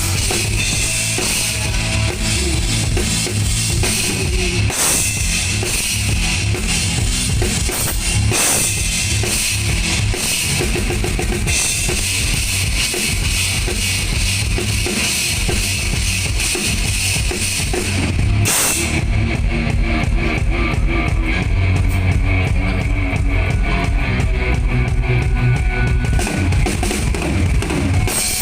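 Rock band playing live through a PA at a sound check: drum kit driving with a heavy bass drum and cymbals, over electric guitar and bass. The cymbal wash falls away about two-thirds of the way through while the drums and bass carry on.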